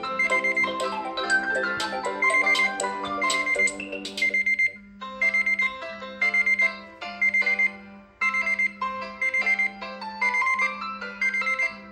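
Smartphone alarm or timer tone playing a melodic electronic chime in short repeating phrases, changing to a different tune about five seconds in.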